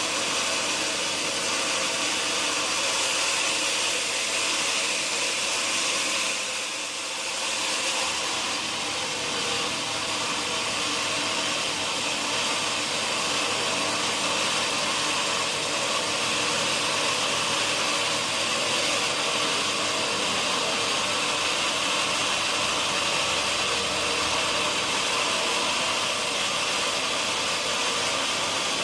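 Sawmill machinery running steadily with a constant mechanical hum and hiss, briefly easing off about seven seconds in.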